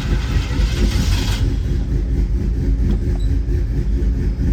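Engine of an old El Camino-style car idling steadily, the idle running a little low. A rush of noise sits over it for about the first second and a half.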